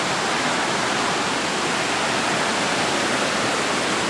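Shallow rocky creek rushing over stones and small rapids: a steady rush of water.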